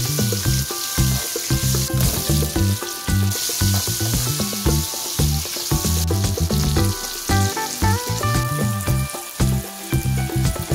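Green peppers and red onion sizzling in hot oil in a wok, stirred with a wooden spatula, over background music with a steady beat.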